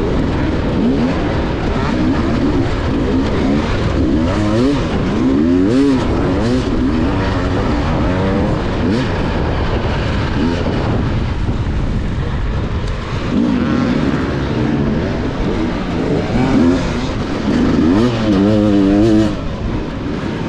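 Enduro dirt bike engine heard up close from the rider's onboard camera, revving up and down over and over with the throttle, with the sharpest rises about five seconds in and again near the end.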